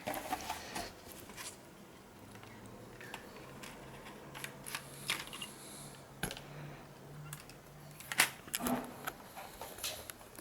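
Scattered light clicks and taps of handling on a workbench, over a faint steady low hum. The clicks are loudest about eight seconds in.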